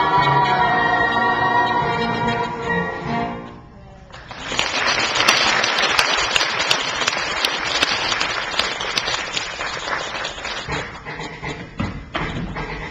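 The stage cast sings the final held chord of a show tune over its accompaniment, which stops about three and a half seconds in. The audience then breaks into applause, thick and steady at first, then thinning toward the end.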